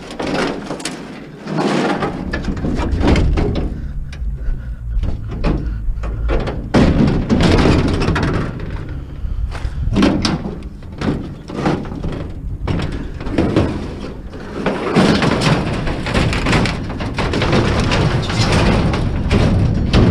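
Sheet-aluminium awning being handled and loaded, with repeated clanks, bangs and rattles of thin metal throughout, over a low rumble from about two seconds in.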